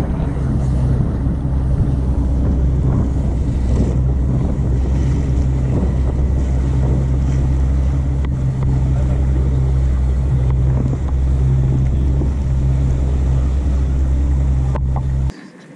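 Motorboat engine running steadily at cruising speed, a constant low drone, mixed with wind buffeting the microphone and the hull rushing through the water. It cuts off abruptly just before the end.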